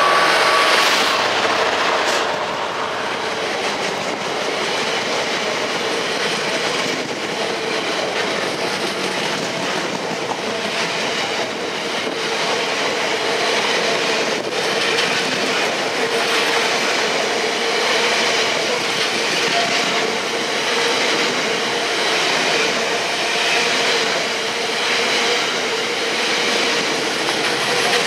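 Freightliner Class 66 diesel-electric locomotive 66512, its two-stroke V12 engine loudest as it passes in the first second or two, followed by a long rake of hopper wagons rolling past with steady wheel rumble, a continuous hum and the odd click over rail joints.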